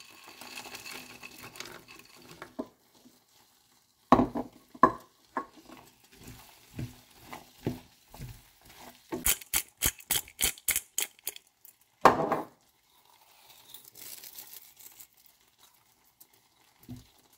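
Wooden spoon stirring dried fruit, almonds and diced chicken through a thick curry sauce in a frying pan: irregular scrapes and knocks of the spoon against the pan, with a faint sizzle from the sauce. About halfway through comes a quick run of clicks, and a sharp knock follows.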